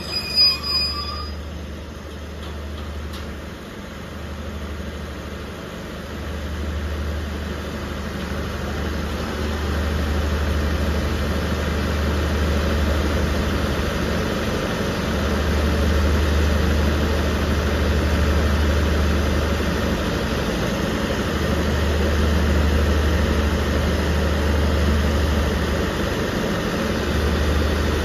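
Diesel engine of a passenger train standing at a station, running at idle with a steady low hum that grows louder several seconds in. A high wheel or brake squeal dies away in the first second.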